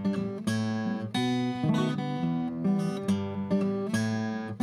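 Acoustic guitar strumming the chords of a song's instrumental introduction, a fresh strum about once a second with the chords ringing between strokes.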